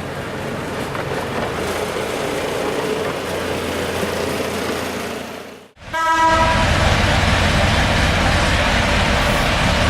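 A miniature railway train running along the track; after an abrupt cut about six seconds in, a short horn blast sounds, followed by a louder locomotive engine running.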